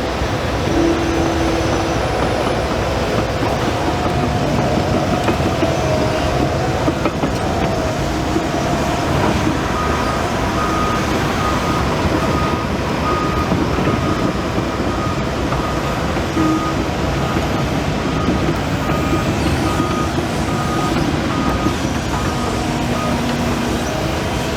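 Develon DD130 crawler bulldozer working, its diesel engine running steadily under load. From about ten seconds in until near the end a reversing alarm sounds in short, regular beeps.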